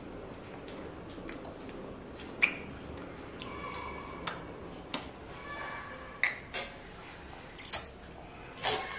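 A toddler eating momo with her fingers: a scatter of short, sharp mouth clicks and lip smacks while she chews.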